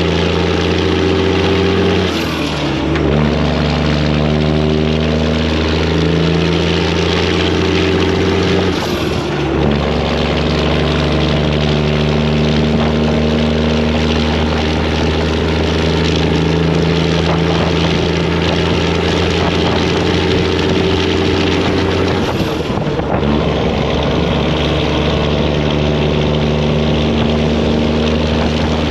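Detroit diesel semi-truck engine under load pulling uphill, its exhaust loud and steady, with three brief breaks about 2, 9 and 22 seconds in as the driver shifts gears.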